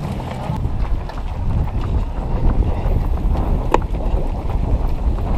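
Wind buffeting the microphone of a camera carried by a running runner: a steady low rumble.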